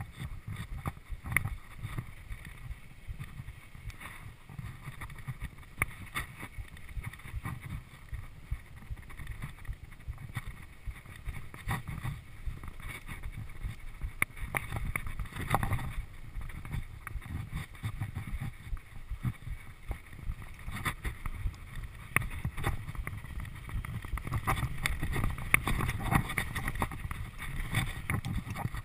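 Mountain bike riding down a dirt trail: a steady low rumble of wind on the microphone and tyres on dirt, with frequent sharp clicks and knocks as the bike rattles over bumps.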